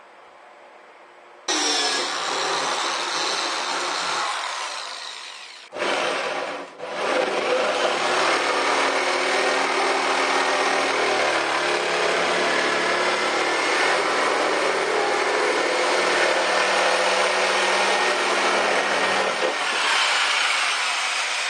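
A power tool cutting. It starts suddenly, runs for a few seconds, stops briefly twice, then runs steadily for about thirteen seconds before cutting off.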